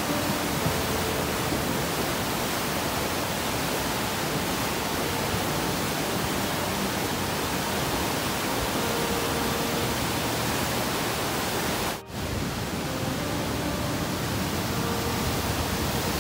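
Muddy flash-flood river rushing over boulders, a loud, steady, even rush of water noise. It cuts out for a split second about twelve seconds in.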